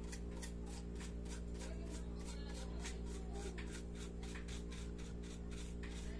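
A small bristle brush scrubbing dust off the plastic frame of a laptop's empty keyboard bay in quick back-and-forth strokes, about four or five a second, over a steady low hum.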